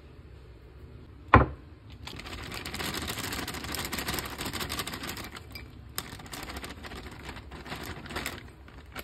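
A sharp knock, then frozen mixed vegetables poured from a plastic bag into a small glass bowl. They make a dense rattle of small hard pieces for about three seconds, then scattered ticks as the last pieces drop in.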